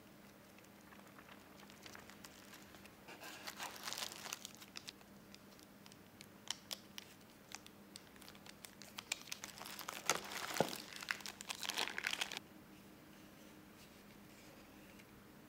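Thin clear plastic packaging crinkling and crackling as it is handled and unwrapped, in several clusters of sharp crackles; it cuts off suddenly about twelve seconds in, leaving a faint steady hum.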